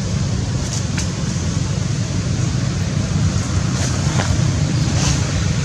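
Steady low rumble of wind buffeting the handheld camera's microphone, with a few faint ticks about a second in and again near four and five seconds.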